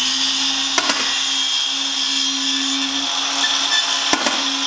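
Milwaukee brushless 7¼-inch circular saw running steadily as its blade cuts lengthwise through a cardboard shipping box, with a steady motor whine under the cutting hiss. The blade begins to spin down at the very end.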